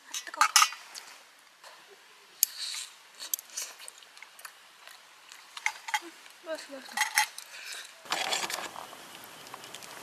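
Clinks and clatter of a metal pick and whelk shells against a stainless steel bowl and pot as cooked whelks are picked out and eaten. About two seconds before the end, a steady hiss comes in.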